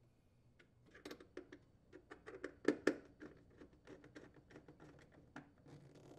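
Faint scattered clicks and taps of a plastic ice maker being handled into place and its mounting screws being turned with a nut driver, with two louder knocks close together near the middle.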